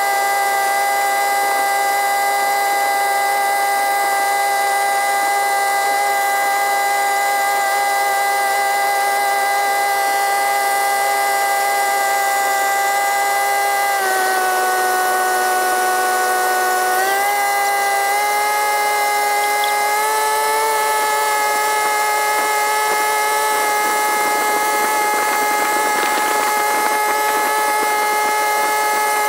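Long-tail boat engine running steadily, sped up by the time lapse so it sounds as a high, drill-like whine. About halfway through the pitch drops for a few seconds as the engine eases off, then climbs back up in two steps.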